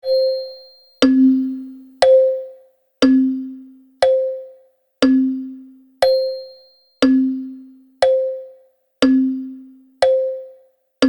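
Wall clock ticking once a second, an alternating tick and tock: each stroke is a sharp click with a short ringing tone, the tick higher-pitched and the tock lower.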